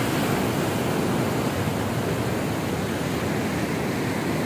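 Rain-swollen canal running fast and turbulent: a steady rush of water. The flow is high from heavy rain.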